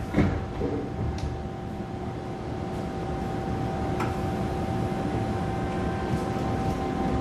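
Inside an MTR M-Train car running through a tunnel: a steady rumble and hiss of the train, with a faint steady whine and a few light clicks. A brief knock comes just after the start.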